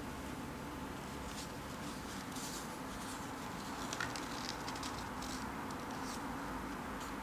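Paper pages of a spiral-bound sketchbook being turned by hand: soft rustles and light scrapes of paper over a steady low hiss, with one sharper click about four seconds in.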